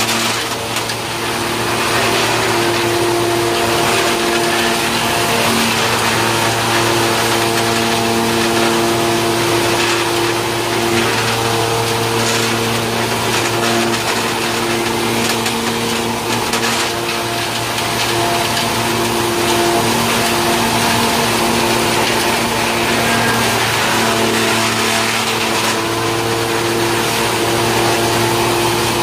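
Belt-driven wood sawdust machine, powered by an electric motor, running steadily while grinding wood into sawdust. It makes a loud hum with several steady tones under a continuous rushing noise, with a few faint knocks now and then.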